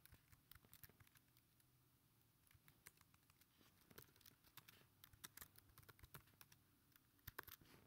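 Faint typing on a computer keyboard: irregular key clicks, coming quicker in the second half.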